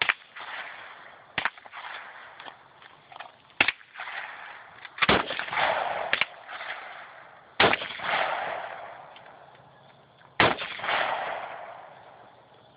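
AR-15 rifle fired in slow single shots, a second or more apart, each crack followed by a long echoing tail.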